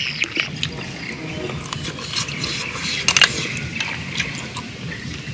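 Light clicks and taps of a bamboo stick and snail shells against each other while the snails are stuffed with filling, with a quick cluster of sharper clicks a little after three seconds in, over a steady background hiss.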